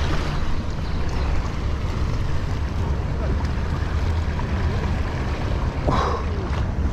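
Wind buffeting the microphone in a steady low rumble, over small waves lapping at the rocky shoreline.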